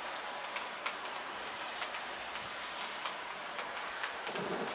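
Steady rain, with irregular ticks of drops striking a nearby hard surface. Near the end a low rumble of thunder begins to build.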